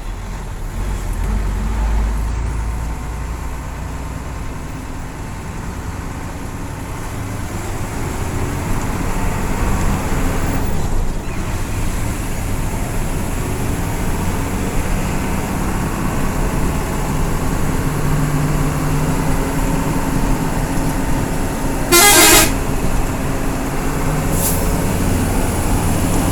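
Intercity bus running along the highway, with steady engine and road noise and a short, loud horn blast near the end.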